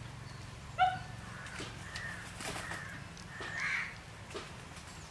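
A crow cawing: one short, sharp call about a second in, then fainter calls a little later, over a steady low hum.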